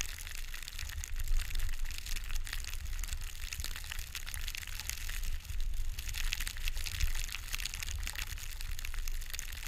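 Skis hissing through deep powder snow, with wind rumbling on the camera's microphone.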